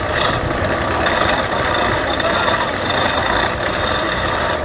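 Wood lathe running: a steady machine drone mixed with a loud, even noise.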